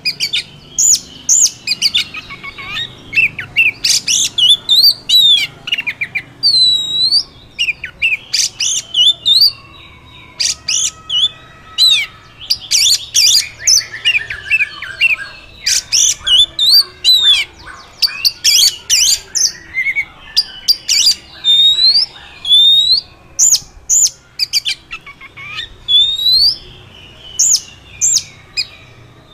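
Oriental magpie-robin singing a long, varied song of loud, sharp whistled notes, rising upswept whistles and quick chattering runs, with short pauses between phrases.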